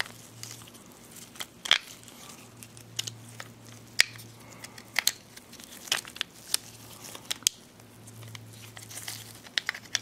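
Plastic parts of a 2009 Subaru Forester wiper switch clicking and rattling irregularly as the switch housing is handled and fitted back together, with crinkling from nitrile gloves. Several sharp clicks stand out, over a faint steady low hum.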